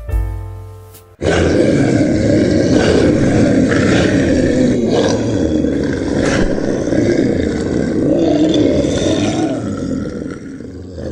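Soft piano notes, then about a second in a loud, rough animal sound effect cuts in abruptly. It carries on unbroken and fades near the end.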